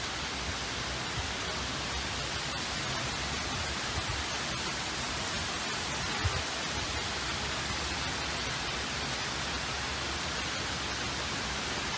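Heavy rain pouring down in a steady, even hiss, with a few faint taps of drops.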